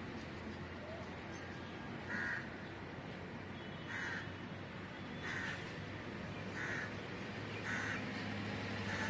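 A crow cawing repeatedly, about six short caws a little over a second apart, over a steady low background hum.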